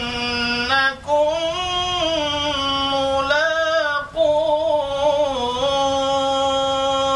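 A man reciting the Quran in Arabic in a melodic chant, drawing out long held notes that waver and glide in pitch. He pauses briefly for breath about a second in and again about four seconds in.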